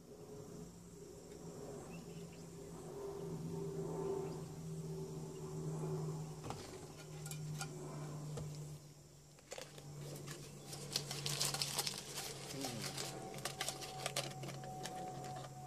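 Pipe being filled with loose tobacco from a metal tin with a paper insert. In the second half, the tin and paper are handled with a run of small clicks and crinkles, over a steady low hum.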